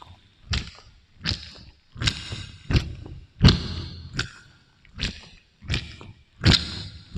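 Close-miked ASMR sounds made with fruit, run through an echo effect: about nine sharp, wet taps or squishes, roughly one every 0.7 s, each trailing off in a short echo.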